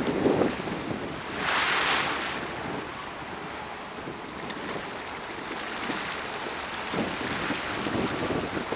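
Wind rushing over the microphone above choppy river water washing, with a louder rush of wind about a second and a half in.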